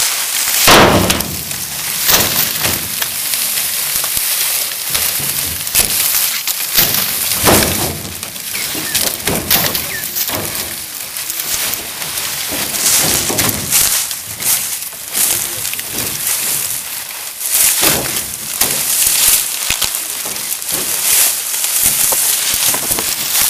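Dry sugarcane stalks and leaf trash crackling, rustling and snapping as they are handled close by, with a few louder knocks.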